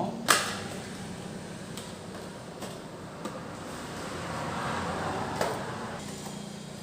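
Handling sounds from a processor's small cardboard retail box being opened: a sharp click about a third of a second in, then a rustle that swells a little past the middle and ends in another click.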